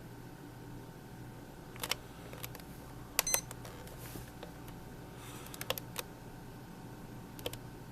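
Buttons on a Mattel Barbie BE-337 clock radio being pressed: short sharp plastic clicks in small clusters, a few groups a second or two apart.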